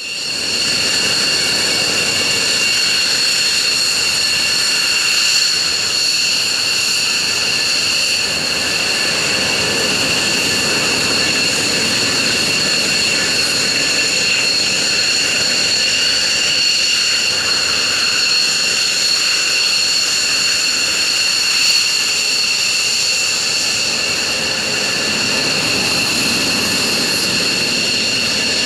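Military jet fighter engines running at idle: a steady, unbroken whine made of several high tones over a rushing rumble.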